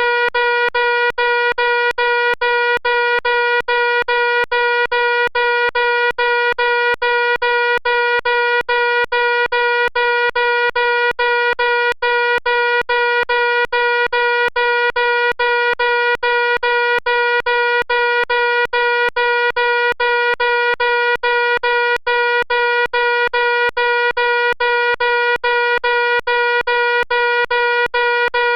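Fire alarm sounding continuously: one loud, buzzy tone, broken by very short dropouts in a fast, even rhythm.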